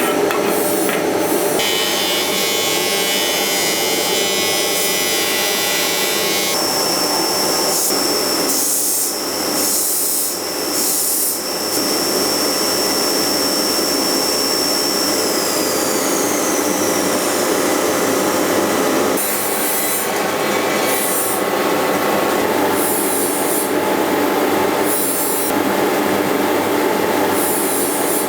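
Steady grinding and rasping of tools working the steel of a knife blade. It comes in several abruptly cut stretches, with a high whine in the middle that falls away.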